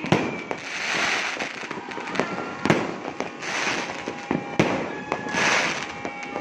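Fireworks going off: sharp bangs at uneven intervals, with three hissing swells of crackling sparks, each lasting about a second, in between.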